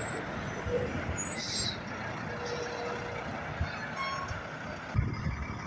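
Road traffic noise from passing trucks, with a short hiss about a second and a half in. A knock about five seconds in is followed by a low, gusty rumble.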